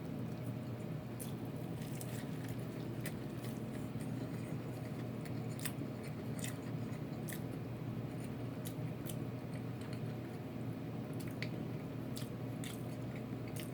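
Close-up chewing and biting into crispy Korean fried chicken, with irregular sharp crunches. A steady low hum runs underneath.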